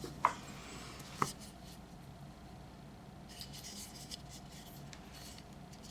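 Quiet handling of a small hair-product bottle: two short clicks about a second apart, then soft rubbing a few seconds in.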